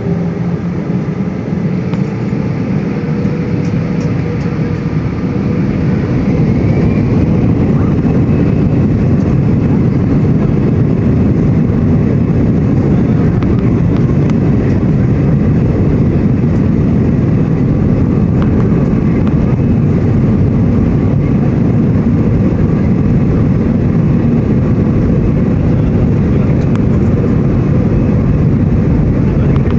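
Jet airliner's engines spooling up to take-off thrust, the noise building over the first several seconds and then holding steady and loud through the take-off run. A steady tone in the first few seconds fades out as the engine noise rises.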